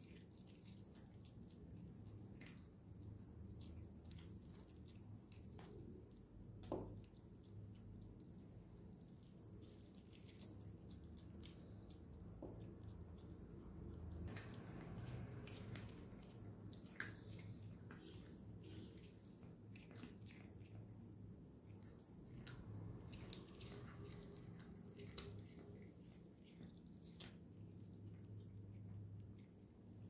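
Faint, steady high-pitched drone with a low hum underneath and scattered faint clicks and taps; a louder tick about 17 seconds in.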